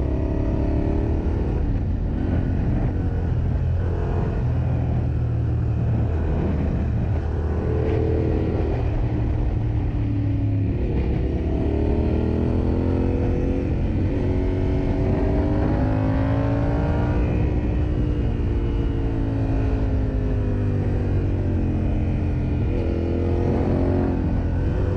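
Yamaha Ténéré 700's parallel-twin engine under way, with a steady rumble of wind and road underneath. The revs climb and fall several times, with a long climb a little before halfway, a slow fall after it, and another climb near the end.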